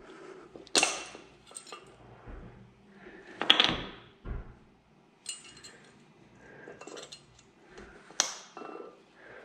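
Brake pads and their metal retaining clips clinking and clicking against the caliper bracket as the pads are clipped in, with several sharp metallic clicks, the loudest about a second in, midway and near the end.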